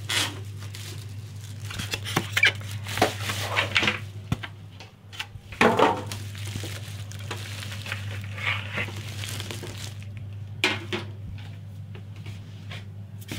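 Plastic bag wrapping crinkling and rustling in irregular bursts as a grill is worked out of its polystyrene packing, with a few sharp knocks of the unit and packing against the counter.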